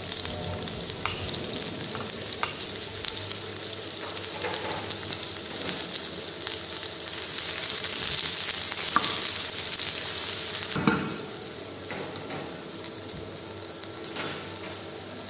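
Sliced onions sizzling in hot oil in a non-stick pan, stirred with a wooden spatula that gives a few light taps and scrapes. The sizzle swells in the middle and eases off about eleven seconds in.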